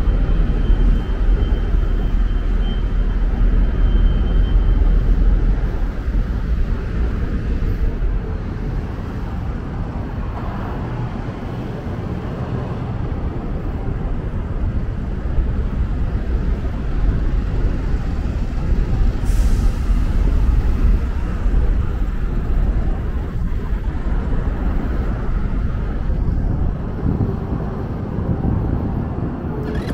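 City street traffic: engines and tyres running past with a steady low rumble, and one short, sharp hiss about two-thirds of the way through.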